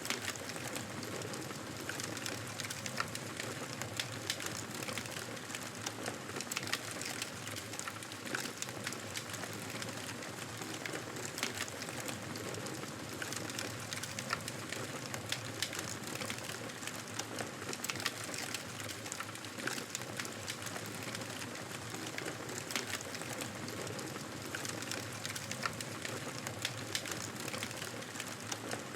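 Wood fire crackling in a fireplace: a steady soft hiss with frequent small pops and snaps.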